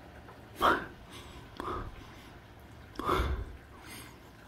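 Faint steady hiss of rain heard through a closed window, broken by three short, breathy human sounds close to the microphone, the loudest a little over half a second in.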